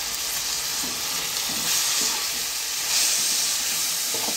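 Chopped tomatoes and onions sizzling in oil in a metal kadai while a perforated metal spatula stirs and scrapes through them, with louder stirring strokes about two seconds in and again about three seconds in. The tomatoes are being sautéed down until soft and mushy.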